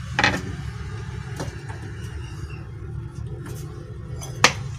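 A few sharp knocks of kitchen utensils over a steady low hum: a knife tapping on a wooden cutting board, then a ceramic mug knocked down on the counter, which is the loudest knock, near the end.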